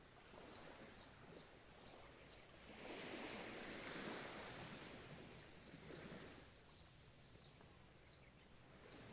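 Soft ocean waves: one wave surges in about three seconds in and washes away over a few seconds, and the next begins to build near the end.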